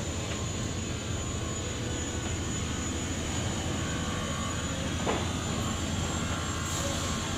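Steady low rumble of running machinery with a thin high whine over it, and one sharp knock about five seconds in.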